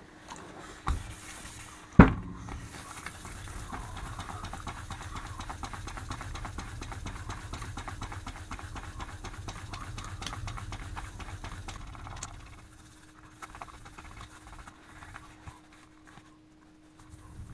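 Steel axe head being hand-sanded with fine P2000 sandpaper: rapid back-and-forth scratching strokes. A sharp knock comes about two seconds in, and the strokes thin to a few light scrapes in the last few seconds.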